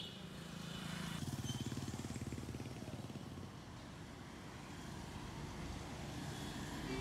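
Roadside traffic noise, with a small vehicle engine running loudly for a couple of seconds starting about a second in, then a steady background hum of the street.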